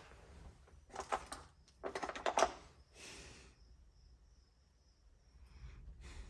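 Small hand tools being handled on a workbench: several short bursts of light clicking and rattling, the busiest about two seconds in.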